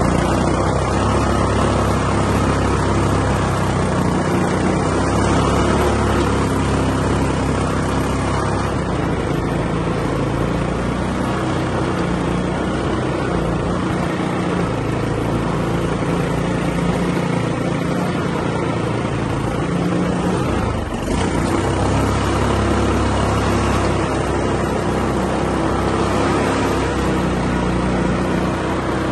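Quad bike (ATV) engine running while being ridden, its pitch rising and falling slightly with the throttle, with a brief drop about two-thirds of the way through.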